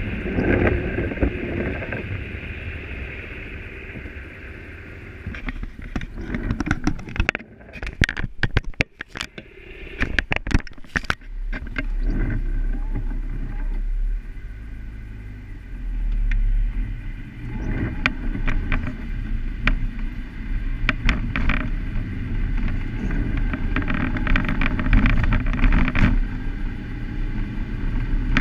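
Car interior noise while driving on wet city streets: a steady low rumble of engine and tyres, broken by sharp rattling clicks and knocks, densest for several seconds early on and again near the end.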